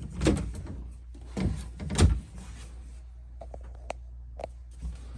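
Thuds and knocks of a cabinet or storage door being opened and shut, three heavier thuds in the first two seconds, then a few light clicks.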